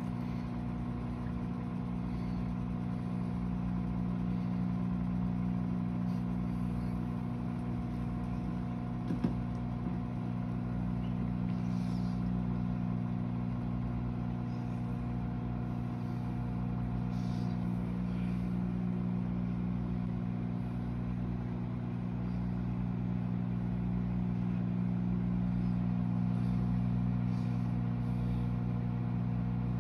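Microwave oven running, a steady electrical hum of several low tones from its transformer and fan, with one short click about nine seconds in.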